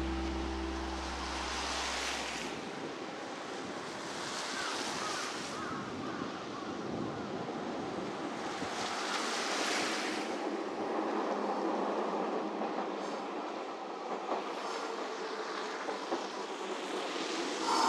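Street traffic on a slushy, snow-covered road: tyre hiss from passing cars rising and falling in several swells. Near the end a Hakodate City Transportation Bureau 8000-series tram draws up with rising wheel and rail clatter.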